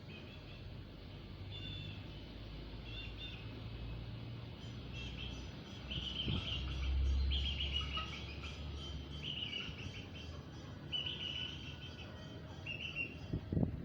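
Young Aseel chickens cheeping: short, high chirps repeated every second or so, over a low rumble that swells in the middle.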